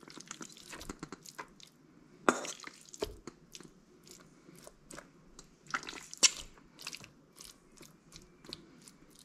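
Pieces of fried chicken fillet tipped from a metal bowl onto salad leaves and spread out with a fork: soft wet squelches and irregular clicks of the fork and bowl rims. The sharpest knocks come about two seconds in and about six seconds in.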